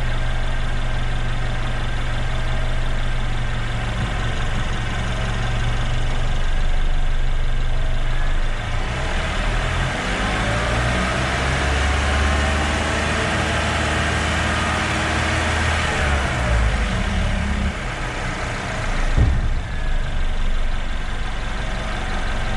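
Car engine idling, then revved up about nine seconds in and held at raised speed, around 2,500 rpm, for several seconds before dropping back to idle. The raised revs load the alternator for a charging-system test.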